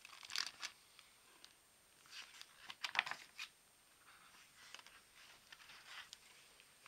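Pages of a hardcover picture book being turned by hand: three bouts of faint paper rustling and brushing.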